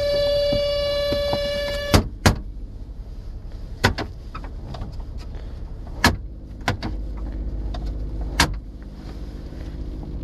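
Toyota Sienna minivan making a steady high-pitched whine that stops abruptly with a clunk about two seconds in. Scattered clicks and knocks follow over a low rumble.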